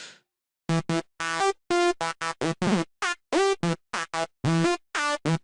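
Sylenth1 software synth playing a psytrance night full-on lead: a run of short, bright staccato notes, about three or four a second, starting under a second in. Several notes open with a quick downward pitch swoop, from a pitch LFO whose depth is shaped by an envelope.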